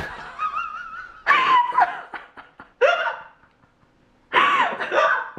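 Hearty laughter coming in bursts, with a Yorkshire terrier's high wavering whine in the first second.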